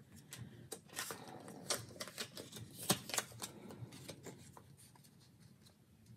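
Faint paper rustling with light ticks and taps as sticky notes are peeled up and pressed back down on a planner page to straighten them, dying away about five seconds in.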